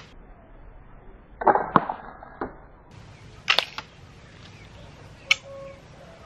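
Homemade wooden rubber-band speargun being fired: a cluster of sharp snaps and knocks about a second and a half in, then single sharp snaps near the middle and near the end.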